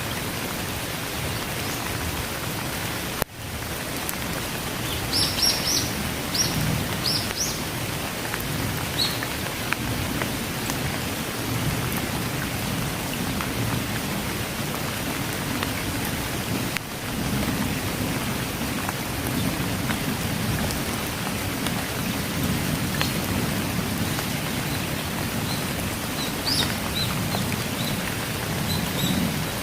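Steady rain falling, with low rumbling thunder underneath and a few short bird chirps about five to eight seconds in and again near the end. The sound drops out briefly twice, at about three and seventeen seconds.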